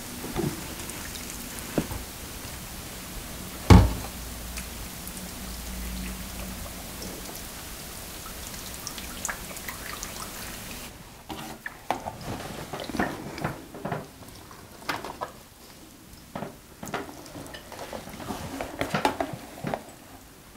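Water pouring steadily from a plastic jug onto the potting soil of a houseplant, with one sharp knock a few seconds in. The pour stops about halfway through, leaving scattered small taps and drips.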